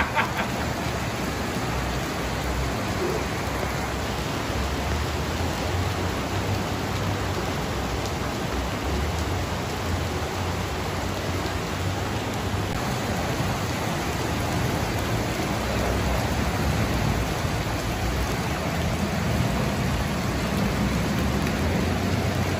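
Heavy rain and fast-flowing muddy floodwater of a flash flood, a steady, even rushing hiss.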